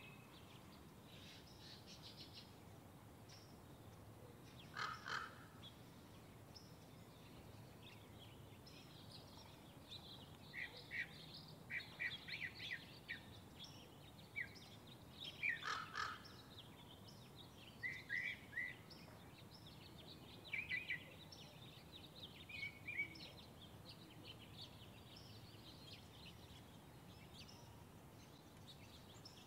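Wild birds calling on and off: clusters of short high chirps, with two louder, harsher calls about five and sixteen seconds in, over a faint steady background hiss.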